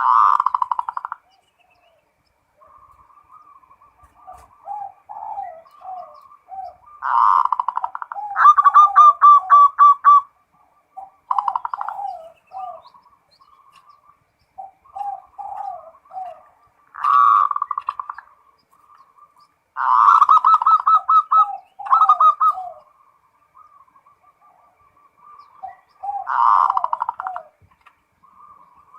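Zebra dove (perkutut) cooing in repeated phrases. Each phrase is a fast rolling run of notes, with softer, lower coos in between and short pauses between phrases.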